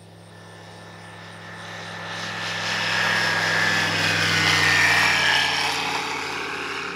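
Texas Aircraft Colt light-sport airplane taking off at full power, its Continental engine and propeller running steadily. It grows louder as the plane lifts off and climbs past, is loudest about five seconds in, then fades a little.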